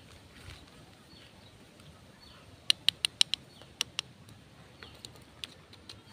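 Hard plastic toy fruit and a toy plastic knife knocking together as they are handled: a quick run of five or six sharp clicks about three seconds in, then one or two more single taps.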